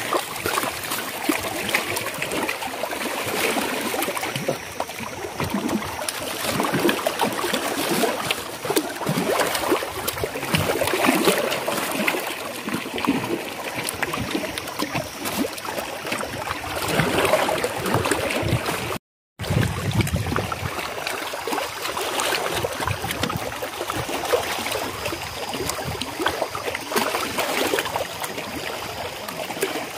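Water lapping and splashing against rocks, with the crinkling rustle of a plastic bag as bait powder is mixed by hand. The sound cuts out for a moment about two-thirds of the way through.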